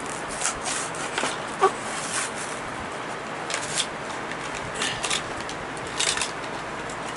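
A Hot Wheels blister pack being torn open by hand: the plastic bubble and cardboard backing card crinkle and crackle in a string of short, irregular snaps as the toy car is worked out.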